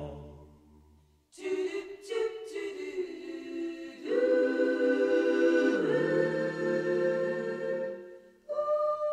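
An a cappella choir singing long held chords. It comes in after a short gap about a second and a half in, and the chords shift every couple of seconds.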